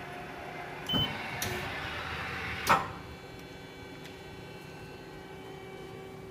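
Hyundai Wia L150A CNC lathe running, a steady hum with several fixed tones. About a second in comes a knock with a brief high tone, then a second or so of rushing noise, ending in a louder sharp clunk.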